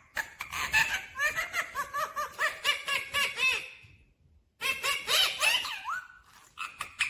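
Ringneck parrot giving fast runs of high, repeated laughter-like calls, in two bouts with a short pause a little past halfway.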